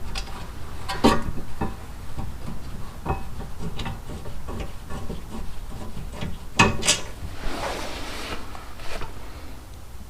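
Scattered clinks and knocks of tools and brake hardware being handled, with a short scraping rub about eight seconds in.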